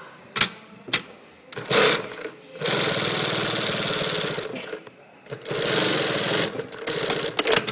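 Sansei SA-M8750-64/D4 direct-drive twin-needle industrial lockstitch machine sewing heavy fabric. It runs in two spells of about two seconds and one second, after a couple of sharp clicks, and gives a few short bursts of stitches near the end.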